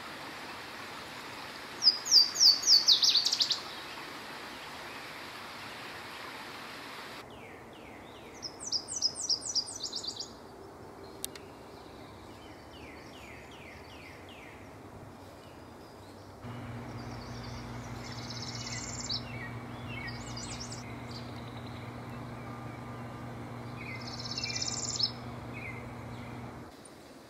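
Spring warbler songs, one after another. About two seconds in, a loud series of clear, ringing notes is heard. Around eight seconds, a Nashville warbler sings high repeated notes followed by a lower run of notes. Around 18 and 24 seconds, a northern parula gives two buzzy trills, with a steady low hum beneath from about 16 seconds on.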